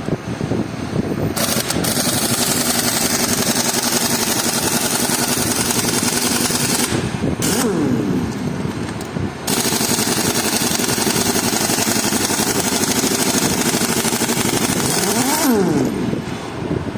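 A loud motor-driven machine or power tool running in long stretches, with two short breaks, its pitch sliding up and down as it speeds up and winds down near the breaks and near the end.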